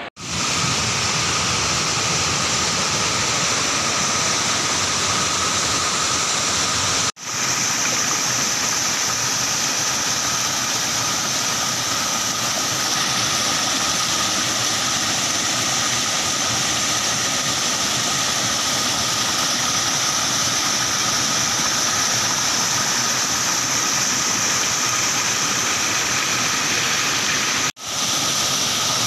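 Small waterfall spilling over stepped rock ledges into a pool: a steady rushing of falling water, with two brief dropouts.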